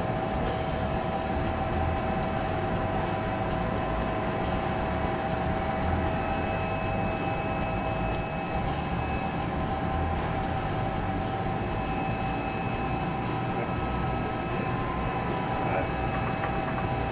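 Steady hum of a powered-up Romi Galaxy CNC lathe standing with its spindle stopped, with a couple of steady whining tones over it.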